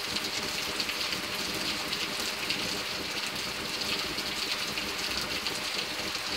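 Heavy rain falling steadily: an even hiss of downpour, dotted with many close drops and splashes.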